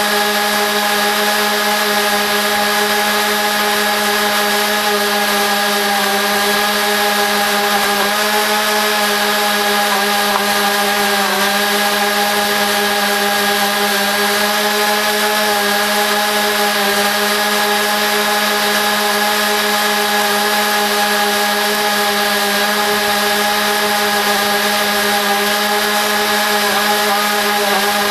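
Lawn mower engine running steadily while mowing, in a recording sped up fourfold. The pitch holds even, with a brief dip about a third of the way in.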